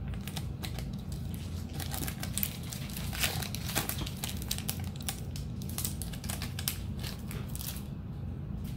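Foil booster-pack wrapper crinkling and crackling in the hands as it is torn open and the cards are pulled out. The crackling thins out near the end.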